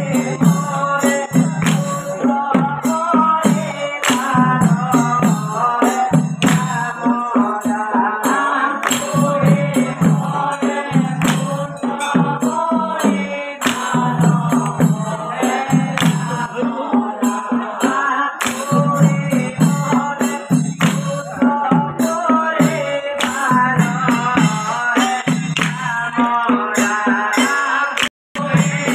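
Assamese Holi geet (devotional folk song): a man's lead voice through a microphone with a group of men singing along, over a steady beat of sharp, jingling percussion. The sound cuts out for a moment near the end.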